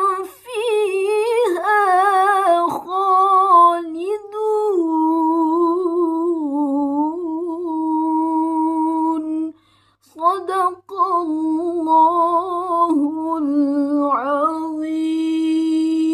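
A woman's solo melodic Quran recitation (tilawah): long held notes with ornamented turns and wavering pitch. A short breath pause comes about two-thirds of the way through, then the line resumes on long held notes.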